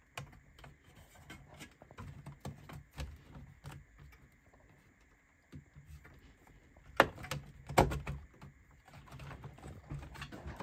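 Metal shield cover of a Dell OptiPlex all-in-one being pressed down and pushed to slide it open: faint rubbing of the sheet metal, then a cluster of sharp metal clicks and knocks about seven to eight seconds in, and another click near the end.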